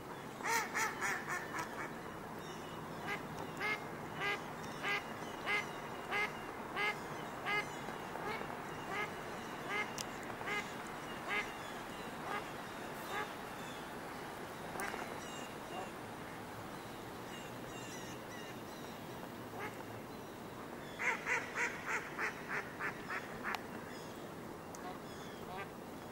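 Mallards quacking: a quick run of quacks at the start, then slower single quacks for several seconds, scattered ones after that, and another quick run of quacks near the end.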